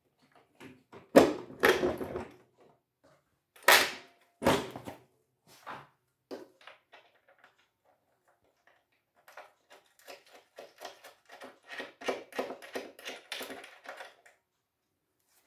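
Metal knocks and clinks of an M8 bolt and nut being fitted through a lawnmower's steel deck to fasten the engine. A few sharp knocks come in the first six seconds, the first the loudest, then a run of quick small clicks for about five seconds.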